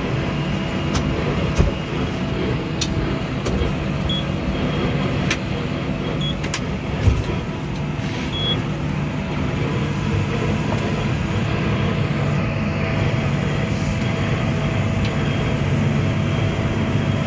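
A vehicle engine runs steadily at a constant speed as a low, even hum. A few light clicks and ticks sound over it.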